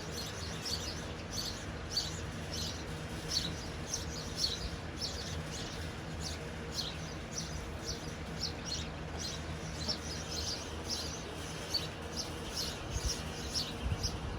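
Small birds chirping, short high chirps repeating several times a second, over a low steady background rumble.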